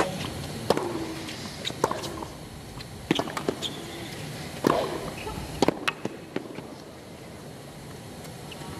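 Tennis rally on a hard court: a ball is struck back and forth with rackets and bounces, making sharp pops every second or so over the low hum of a stadium crowd. The hits thin out after about six seconds.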